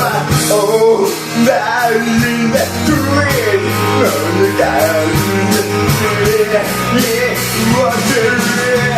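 A rock song with a singing voice, guitar and a steady drum beat.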